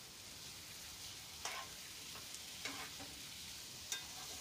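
Beef liver pieces in masala sizzling faintly in a nonstick wok while a wooden spatula stirs them, with three short scrapes or knocks of the spatula against the pan.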